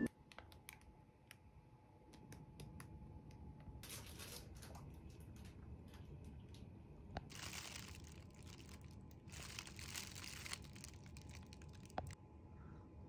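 Thin clear plastic bread bags crinkling as they are handled and opened, in a few short rustling bursts with small clicks in between.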